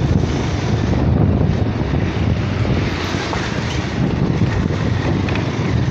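Steady rumble of a motorcycle in motion: wind buffeting the microphone over the engine and road noise of the moving bike.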